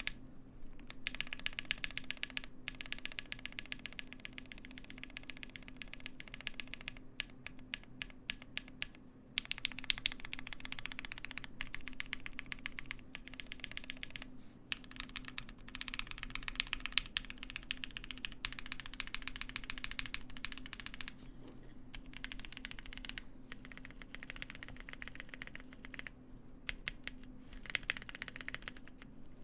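Fast typing on a Cannon Keys Bakeneko60 mechanical keyboard with lubed and filmed Lavender switches and PBT keycaps: a dense stream of key clacks in runs of a few seconds, broken by brief pauses.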